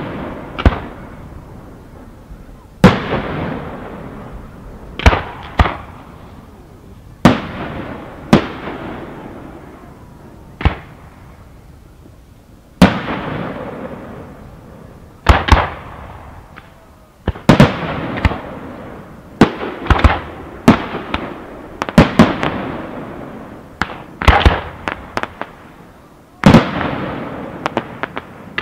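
Fireworks display: aerial shells going off in loud, sharp bangs every one to three seconds, some in quick clusters of two or three, each bang dying away over a second or two.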